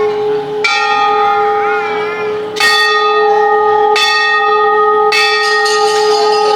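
Hindu temple bells rung by hand: four strikes, roughly one to two seconds apart, each ringing on and overlapping the next, over the steady hum of bells still sounding. Faint voices waver under the ringing about two seconds in.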